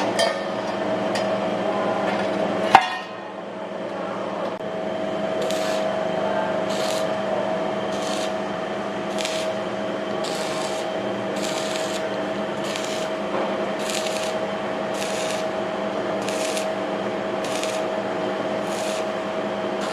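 Regular rasping strokes of a hand tool working a workpiece, roughly one stroke a second, over a steady machine hum. A single sharp knock comes about three seconds in.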